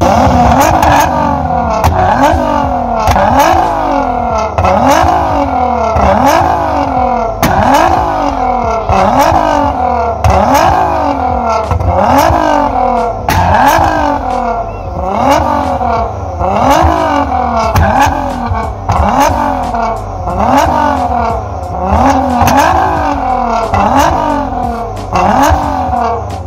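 Electronic music with a steady beat: the same rising pitch sweep and click repeat evenly, a little more than once a second.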